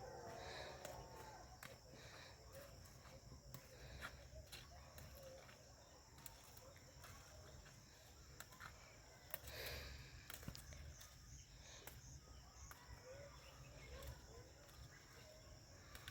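Faint outdoor rural ambience: a steady high insect chorus, with a few soft bird chirps and scattered light clicks.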